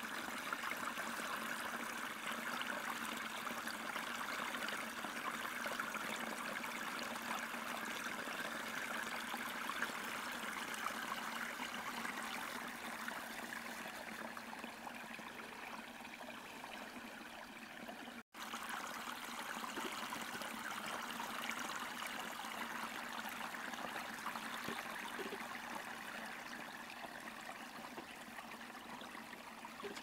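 Small, shallow stream running between snow-covered banks, a steady trickle of flowing water that drops out for an instant about eighteen seconds in.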